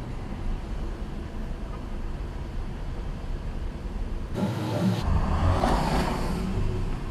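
Road traffic heard from a dashcam in a waiting car: a steady low engine and road rumble, swelling as a vehicle passes about five to six seconds in.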